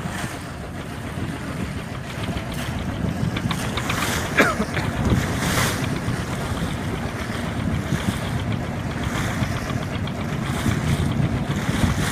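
Wind blowing hard across the microphone and choppy sea water sloshing and splashing around a small boat, with a steady low rumble underneath.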